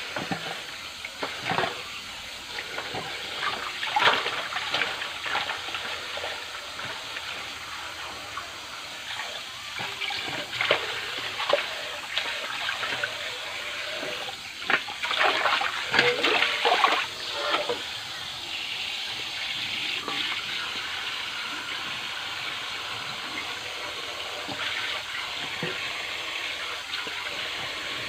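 Tap water pouring into a stainless steel basin while a bunch of Malabar spinach (alugbati) is washed by hand, with irregular splashes and knocks from the greens and hands in the water. The splashing stops about two-thirds of the way through, and a steady run of water continues.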